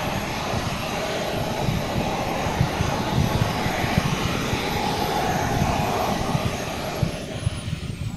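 Gas turbine engines of a large four-engined radio-controlled Avro Vulcan model running on the ground: a steady rushing roar with a thin high whine. Near the end the whine falls in pitch and the roar eases as the turbines slow.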